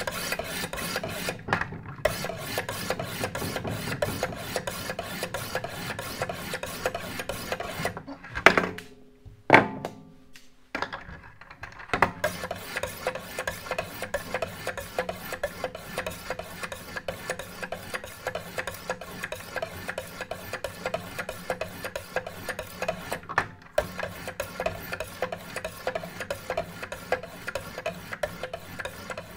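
Two abrasive sharpening stones of a Wicked Edge guided sharpener scraping in fast, even strokes along both sides of a clamped knife blade: a steady rasping rhythm. About a third of the way in the stroking stops, there are two sharp knocks as the pair of stones is changed for another, and then the rasping strokes start again.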